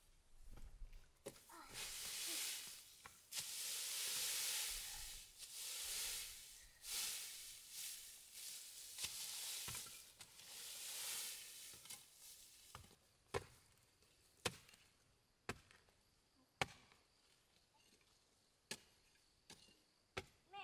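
Hand hoes scraping and chopping into dry, grass-covered soil, about one stroke a second. Through the first half each stroke is a rough scraping swell; from about two-thirds of the way in they become single sharp knocks spaced about a second apart.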